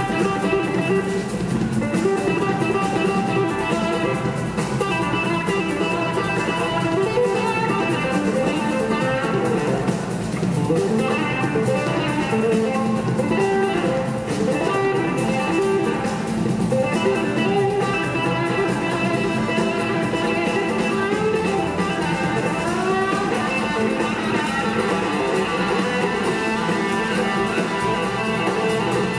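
Live rock band jamming instrumentally: electric guitar playing over bass guitar, keyboards and drum kit, with no singing.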